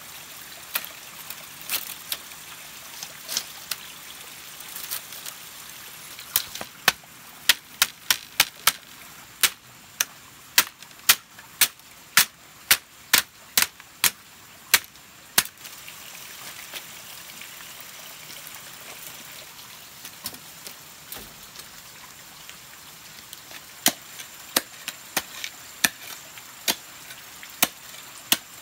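Bamboo being chopped with a blade: a quick run of sharp strikes, about two a second, through the first half, with scattered single blows before and after.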